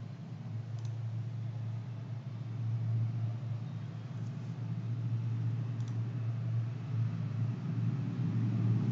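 A steady low rumble, growing slightly louder towards the end, with two faint clicks, about a second in and near six seconds.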